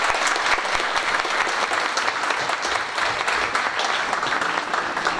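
Audience applauding, many hands clapping together, easing off slightly toward the end.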